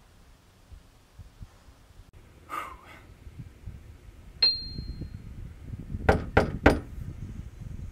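A single bright ding, one ringing tone that fades within about a second, comes about four and a half seconds in. About a second and a half later come three sharp knocks on the front door in quick succession.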